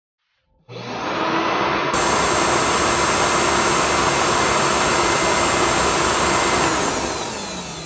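Sound effect of an animated outro: a steady rushing noise that starts suddenly under a second in, gets brighter about two seconds in, and fades near the end.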